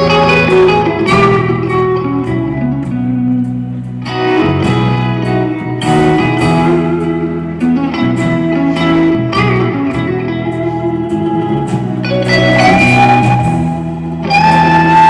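Live band playing an instrumental passage led by guitar: plucked notes over a steady bass line, with notes sliding upward in pitch near the end.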